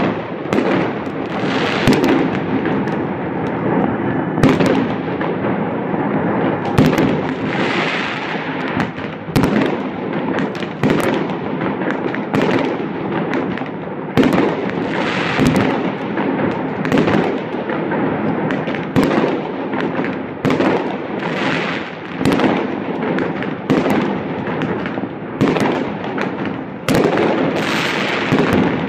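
Many fireworks going off at once: sharp bangs one or two a second over a constant dense crackle.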